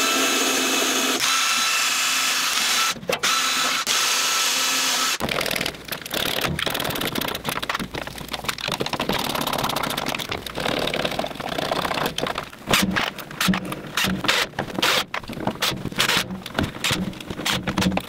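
Cordless drill with a countersink bit running steadily into wood for about five seconds, then stopping. After it come irregular clicks and scrapes of a hand screwdriver turning screws into wooden trim.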